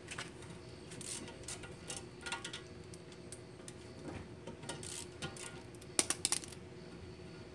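Hand ratchet clicking and metal parts clinking as the brake caliper's 13 mm bolts are backed out and the caliper is worked free of the rotor. The loudest sharp clinks come about six seconds in.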